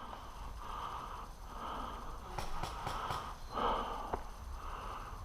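A person breathing heavily close to the microphone, several drawn-out breaths, with a few faint clicks in between.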